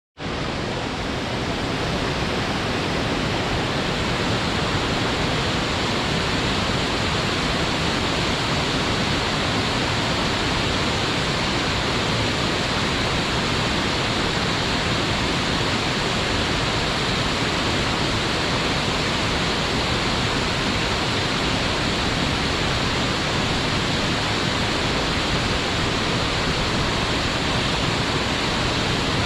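Waterfall: falling water making a dense, steady rush, fading in at the very start.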